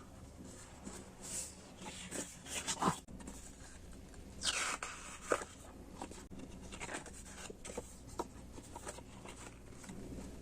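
Stationery and packaging being handled: intermittent rustling and scraping, with a couple of light taps, the clearest a little under halfway through.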